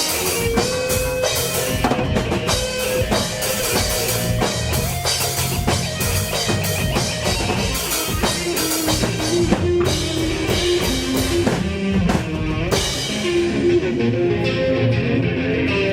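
Live rock band playing, drum kit and guitar together. About three-quarters of the way through, the drums and cymbals drop out, leaving guitar and bass notes.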